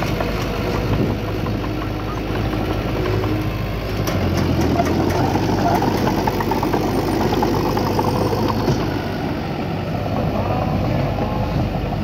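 Heavy diesel earthmoving machine running, its engine note rising a little about four seconds in and then holding steady.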